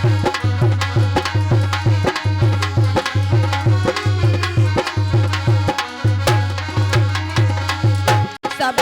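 Instrumental interlude of a Hindi devotional aarti song: hand drums keep a quick, steady beat with a deep bass stroke several times a second under a melody line, with a brief break near the end.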